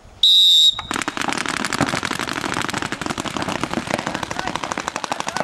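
A short, high-pitched start signal sounds for about half a second. About a second in, paintball markers begin firing in rapid streams of pops from several players at once as the point opens, and the firing keeps going.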